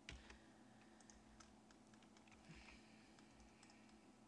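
Faint computer keyboard key presses over near-silent room tone: one sharper click right at the start, then a few light scattered taps. The keys are shortcut presses, undo (Ctrl+Z) and select-all (A).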